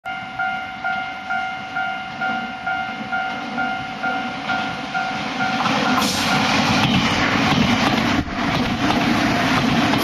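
Japanese level-crossing warning bell ringing, a pulsing two-tone ding a little over twice a second. From about six seconds in, a Nankai 8200-series electric train approaches and passes close by, and the loud rush and rumble of its wheels takes over and covers the bell.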